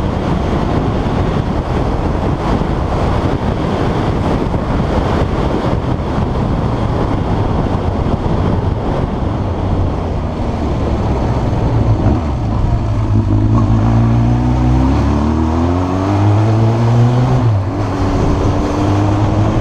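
Yamaha XJ600 S Diversion's air-cooled inline-four engine running under load; about two-thirds of the way through its pitch climbs repeatedly as it revs up.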